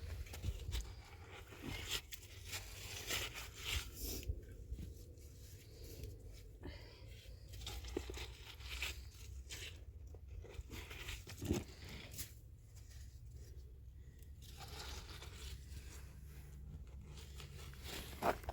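Irregular crunching and rustling handling noises with scattered light knocks, one sharper knock about eleven seconds in, over a steady low rumble.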